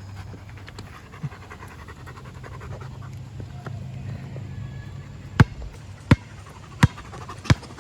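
Dog panting steadily close by. From about five seconds in, a basketball bounces sharply on the court four times, roughly 0.7 seconds apart.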